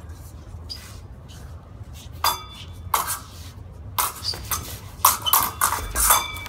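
Steel swords clashing blade on blade in sparring, each hit ringing briefly: two single clashes a couple of seconds in, then a quick flurry of clashes over the last two seconds.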